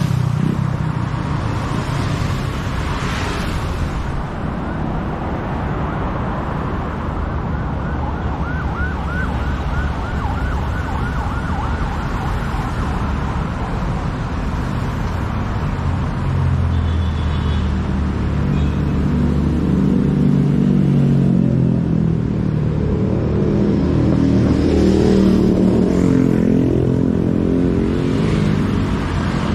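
Heavy city road traffic with engines running steadily. A siren warbles rapidly for a few seconds about a quarter of the way in. A heavy vehicle's engine runs close by in the second half, getting louder toward the end.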